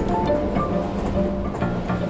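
Background music played on strings: a held low note with slow plucked and bowed notes above it.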